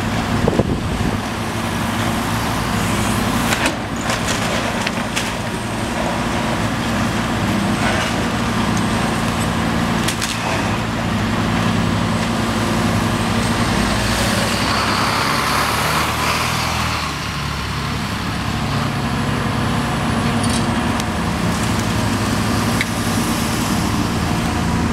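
A demolition excavator's diesel engine runs steadily while debris crashes and clatters now and then as the building is torn down. Road traffic passes close by, a box truck near the end.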